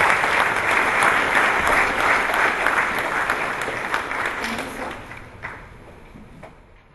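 Audience applauding, steady at first, then dying away over the last few seconds.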